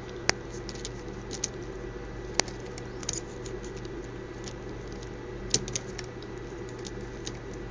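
Small fischertechnik plastic parts clicking and rattling as the monorail's middle motor is handled and realigned, with irregular light ticks and a few sharper clicks over a steady low hum.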